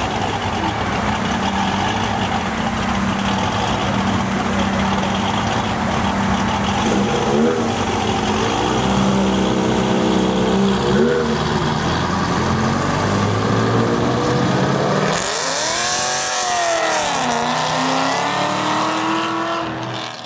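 Ferrari GTS mid-mounted V8 idling steadily, with a few light throttle blips near the middle. About fifteen seconds in it pulls away, revving up, dropping at a gear change and revving up again as it drives off.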